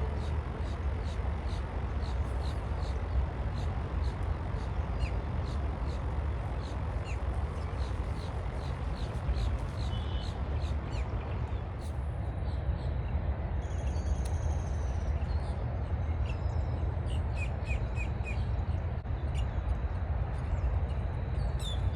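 Birds chirping: a long series of short, high-pitched chirps, about two a second, over a steady low rumble.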